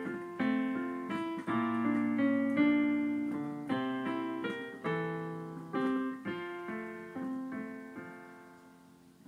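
Piano playing the closing bars of a hymn accompaniment: struck chords that ring and decay, growing softer over the last few seconds until the final chord dies away.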